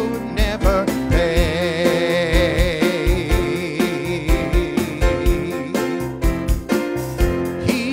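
Gospel song: a man's voice holding notes with a wide vibrato over electric keyboard accompaniment and a steady drum beat.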